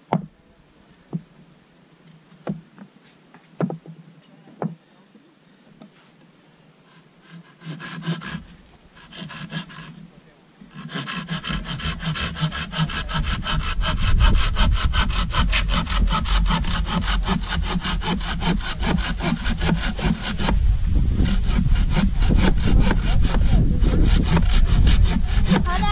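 A few light knocks, then from about eleven seconds in a hand saw cutting through a green bamboo stalk in quick, even back-and-forth strokes.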